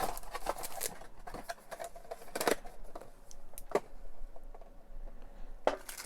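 Handling of a trading-card pack and its packaging: irregular rustles, scrapes and clicks of foil wrapper and card stock being opened, with a few sharper ones about two and a half, four and six seconds in.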